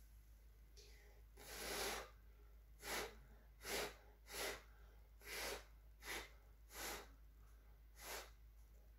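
A person blowing through pursed lips onto wet acrylic paint to push it out into a bloom: one longer blow, then seven short puffs with pauses between them.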